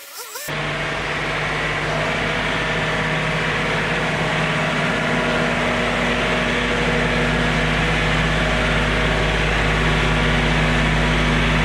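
John Deere 3046R compact tractor's three-cylinder diesel engine running at a steady speed as the tractor drives slowly in, growing slightly louder as it comes closer.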